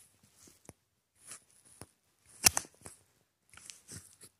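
Irregular handling noises: short rustles and clicks, several of them, the loudest a sharp click about two and a half seconds in.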